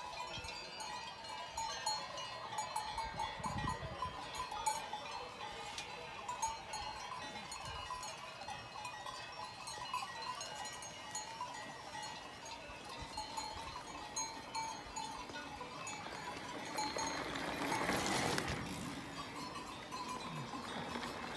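Faint, irregular clinking of distant cowbells. About three-quarters through, a swelling rush of bicycle tyres on the dirt track as mountain bikes approach.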